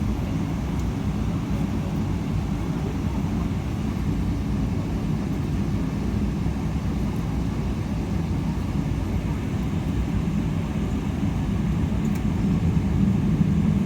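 Jet airliner noise during landing: a steady low rumble that grows slightly louder near the end.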